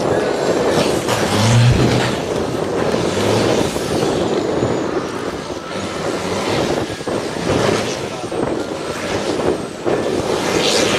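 Race truck engines running hard and revving during a drifting show, a dense, loud mechanical roar with faint high whistling glides near the end.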